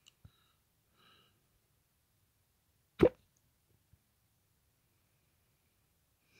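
A single sharp hiccup about three seconds in, short and abrupt, with faint breathing before it.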